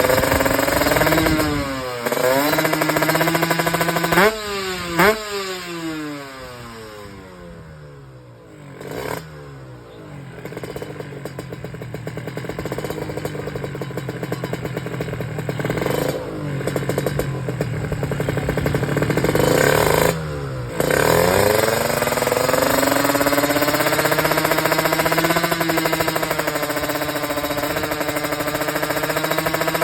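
Kawasaki Ninja two-stroke motorcycle engine coughing: a few quick blips of the throttle, then the revs sag until it nearly dies and sputters before slowly picking back up. After another brief stumble it holds steady at high revs. The uneven running and stumbling are the 'coughing' (batuk) fault the rider is showing.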